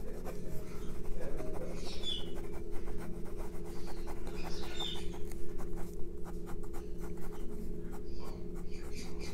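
Graphite pencil shading on paper: rapid scratchy back-and-forth strokes as an area of the portrait is darkened, over a steady low hum.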